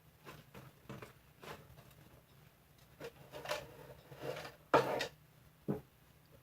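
Kitchen utensils and bowls being handled while baking: a run of light knocks and scrapes, with the loudest knock near the end and one more shortly after.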